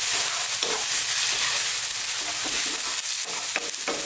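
Chopped onions, garlic, ginger and curry leaves sizzling in hot oil in a non-stick wok, stirred with a wooden spatula: a steady sizzle with short scraping strokes of the spatula through it.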